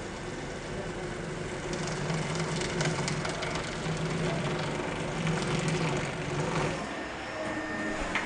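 A steady low mechanical hum that is strongest through the middle and eases off near the end, with scattered light clicks and taps.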